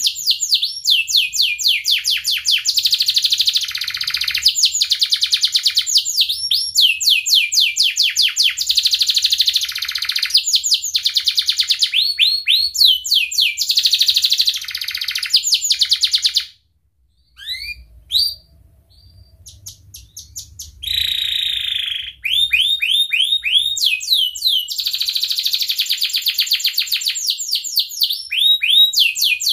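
Domestic canary singing long rolling trills: fast runs of repeated high rising notes, one phrase flowing into the next. Just past the middle the song breaks off for a few seconds with only a few scattered chirps, then the trills resume.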